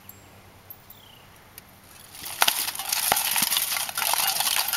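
Steel swords striking steel helmets and armour about two seconds in, then a steady clatter of plate and chainmail as two armoured fighters close and bind.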